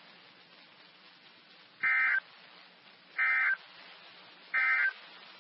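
Three short digital data bursts of the weather radio's SAME end-of-message code, each under half a second and about a second and a half apart, over faint radio hiss. They mark the end of the tornado warning broadcast.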